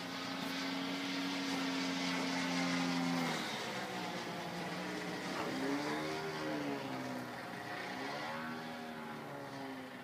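DLE 111 twin-cylinder two-stroke gasoline engine of a 35% scale MX2 aerobatic RC plane in flight. It holds a steady pitch for about three seconds, then its note dips and rises twice as the plane manoeuvres.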